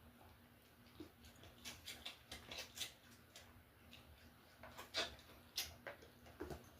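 A dog sucking and smacking on a toy: a run of short, irregular wet clicks starting about a second in.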